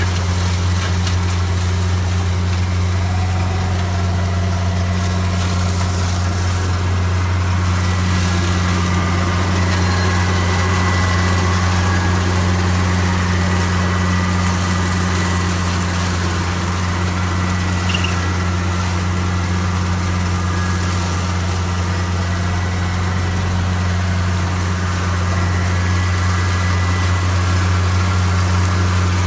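Engine-driven forage harvester / straw shredder running steadily at constant speed, a low even hum.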